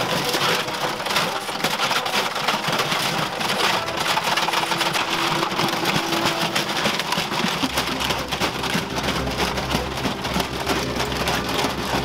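Washing machine drum spinning at full power, winding in steel chains that rattle and clank on concrete as they drag kettles and a toaster: dense, continuous metallic rattling. A low hum joins in about eight seconds in.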